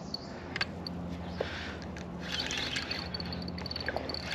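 Fishing reel ticking at about six ticks a second as a hooked carp is played on the rod, pausing briefly and starting again about two and a half seconds in, with a few light clicks and water splashing at the surface.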